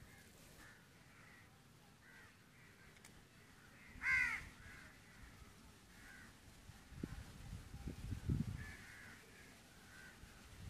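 A bird calls outdoors: one loud call about four seconds in, with fainter calls repeating at intervals around it. Low thumps and rumbles come between about seven and eight and a half seconds in.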